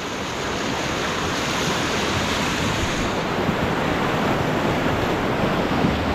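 Steady rush of whitewater from a river rapid, churning over a rock ledge, with some wind on the microphone.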